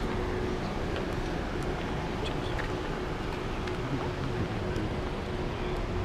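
Cars driving slowly past on a road, a steady wash of traffic noise with a low engine hum that grows a little stronger after about four seconds.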